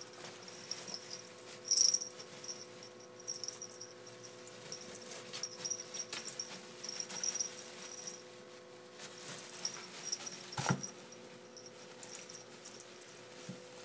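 Two ferrets play-fighting in a box of shredded paper: the paper rustles and scratches as they tumble, with short high squeaks, a louder burst about two seconds in and a thump about ten and a half seconds in. A faint steady hum lies underneath.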